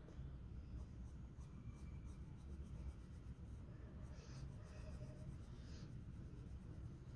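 Coloured pencil shading on paper: faint, soft scratching strokes in short runs, over a low steady rumble.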